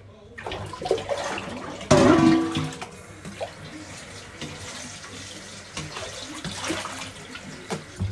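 Tap water running into a kitchen sink while lettuce is washed by hand. About two seconds in there is a loud knock with a short ringing tone, like a metal pot or bowl struck in the sink, and a few lighter knocks follow.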